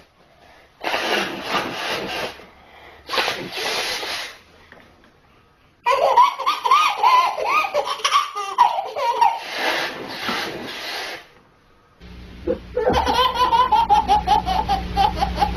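A baby belly-laughing in long runs of high-pitched laughter, after two short, loud breathy blasts that startle it. Then a second baby laughing hard.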